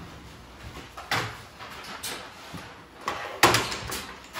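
Several knocks and thuds of objects being set down on a wooden tabletop, one of them a computer keyboard; the loudest knock comes about three and a half seconds in.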